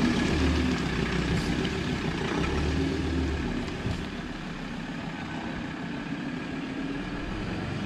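Steady vehicle engine and road noise, with low pulsing bass of background music fading out about halfway through.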